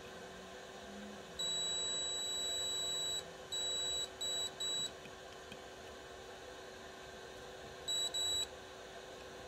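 STC1000 temperature controller's buzzer giving high-pitched electronic beeps while the board is powered up for testing with a chip removed: one long beep of almost two seconds, three short beeps, then after a pause two more short beeps.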